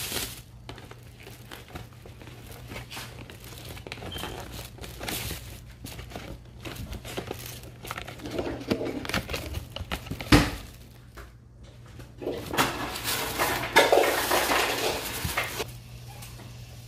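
Plastic grocery bags rustling and crinkling as they are handled and pulled open, with one sharp knock about ten seconds in.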